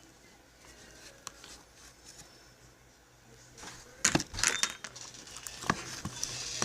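Quiet room, then from about four seconds in a cluster of sharp clicks and knocks with some rustling, as small objects are handled, probably a slime container. A couple more single clicks follow.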